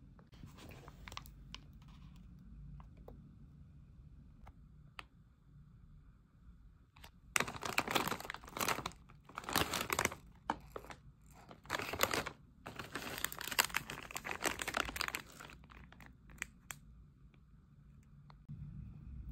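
Crinkly plastic snack packaging being handled: a Doritos chip bag and a wrapped rice cake crackle and rustle in several loud bursts, starting about seven seconds in and lasting about eight seconds. A few faint ticks come before.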